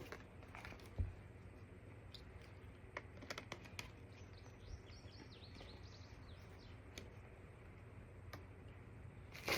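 Quiet room with a steady low hum and scattered faint clicks and taps: a soft thump about a second in and a quick run of clicks a few seconds later. Faint high chirps sound in the middle.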